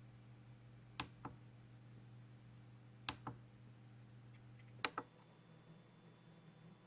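Three presses of a Logitech G610 mechanical keyboard's backlight key, each a click of press and release about two seconds apart, over a faint electrical hum from the dimmed LED backlight. The hum changes as the brightness steps: it stops at the third press, leaving a faint high whine. This buzzing from the dimmed LEDs is a fault, which Logitech support says is not normal.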